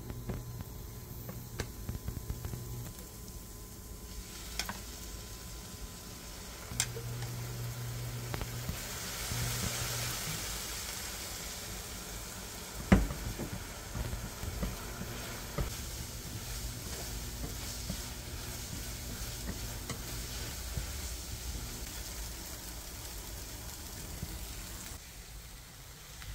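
Egg, vegetables and ramen noodles sizzling in a hot nonstick frying pan while being stirred with wooden chopsticks, with small clicks of the chopsticks on the pan. The sizzling grows louder about eight or nine seconds in, with a single sharp knock about thirteen seconds in. It fades near the end as the pan comes off the heat.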